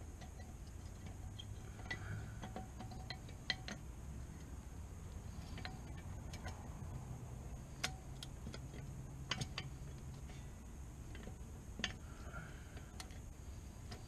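Scattered light metal clicks and clinks of a new rear brake pad being handled and seated into the caliper bracket, with a few sharper knocks spread through, over a faint low hum.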